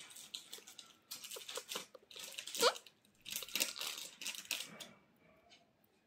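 Soft rustling and scratchy clicks of a hand stroking and cupping an Indian ringneck parrot's feathers, with a single short rising squeak about two and a half seconds in.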